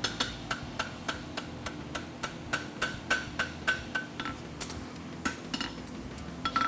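Hand hammer striking a red-hot steel horseshoe over the horn of an anvil, opening up the shoe. Steady blows come about three a second, each with a short metallic ring, thinning to a few spaced strikes after about four seconds.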